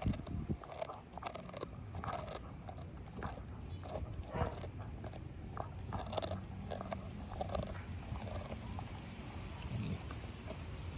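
A pit bull chewing and biting, with irregular crunching clicks.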